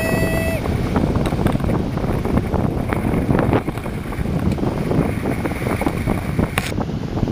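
Strong wind buffeting the microphone over the rush and splash of water, aboard a Hobby 16 catamaran sailing in high wind.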